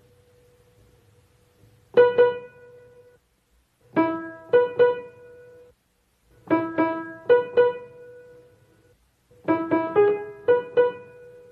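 Piano playing four short phrases of two to five quick notes each, every note struck and then dying away, with a pause of about a second between phrases and a faint held note underneath.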